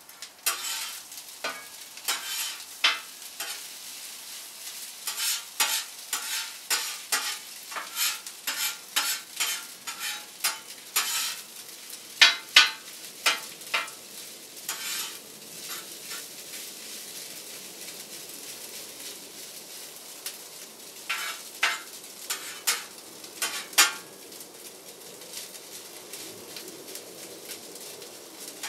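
Rice and onions frying in a hot pan with a steady sizzle, while a spatula scrapes and knocks against the pan as the rice is stirred. The stirring strokes come thick and fast through the first half, ease off, then come in a short burst again later.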